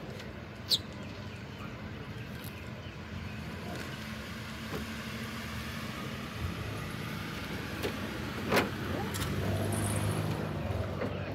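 A few sharp clicks and a clatter from a licence plate frame being handled against the car's trunk lid, over steady outdoor background noise. A low, steady engine hum comes in near the end.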